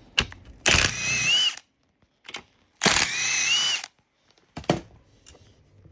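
Power drill spinning out the seat bracket bolts: two short runs of about a second each, a whine whose pitch lifts slightly at the end of each run. Sharp metal clicks come before and after.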